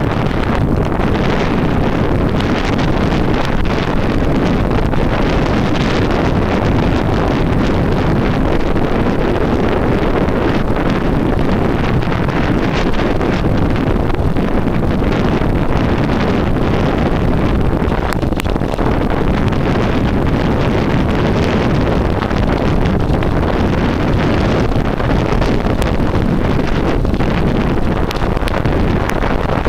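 Wind buffeting the microphone of a handlebar-mounted Pentax Optio VS20 compact camera on a fast bicycle descent into a headwind. The result is a loud, continuous rushing noise, heaviest in the low range.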